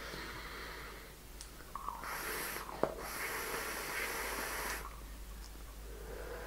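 A drag on a vape: a steady airy hiss of air drawn through a dripping atomizer as its coil fires at 12 watts, lasting about three seconds, with a single click partway through, then a softer breathy exhale near the end.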